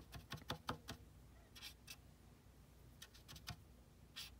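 Faint clicks and light taps of a paintbrush and watercolour supplies being handled, in small clusters about a second apart.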